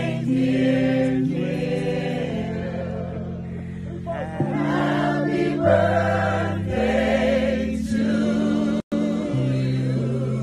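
Gospel choir singing in harmony, with steady held chords underneath that change every second or two. The sound cuts out for an instant about nine seconds in.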